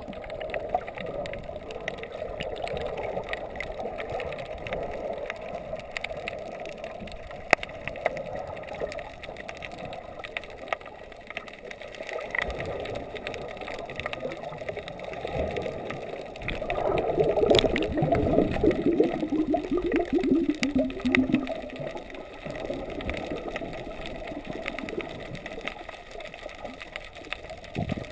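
Muffled underwater noise of water moving around a camera housing, with scattered small clicks. A louder stretch of bubbling runs for a few seconds a little past the middle.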